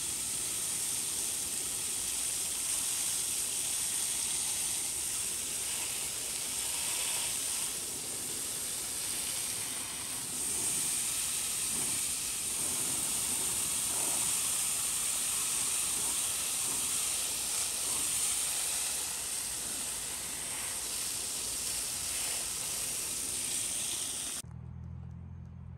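Water hose spraying water onto an outdoor AC condenser coil: a steady hiss of spray that cuts off abruptly near the end.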